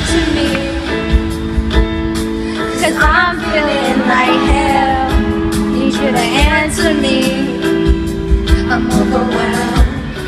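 Live pop ballad: a female singer sings wordless runs whose pitch slides up and down, over long held keyboard chords.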